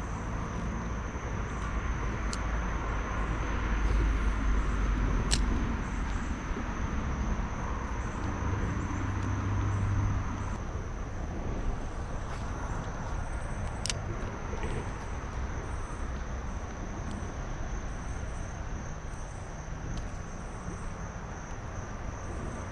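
Steady high chirring of insects over outdoor ambience, with a low rumble that swells about four seconds in and fades out about ten seconds in, and a few faint clicks.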